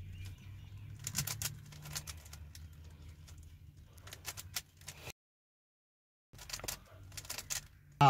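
A Rubik's cube being turned quickly by hand, its layers clicking in short rapid runs, over a steady low hum. The sound drops out completely for about a second, five seconds in.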